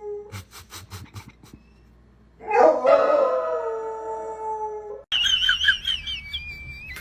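A quick run of clicks, then a dog howls once, a long pitched call lasting nearly three seconds. After the howl, high warbling calls come in over a low rumble.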